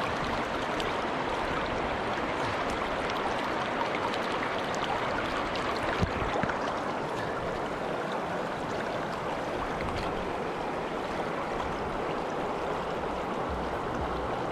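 River water rushing steadily over riffles, with one sharp knock about six seconds in.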